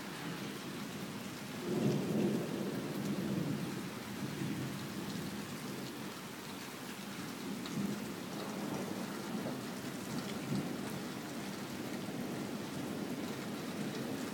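Rolling thunder over steady rain. A loud rumble swells about two seconds in, and further, weaker rolls of thunder come later on.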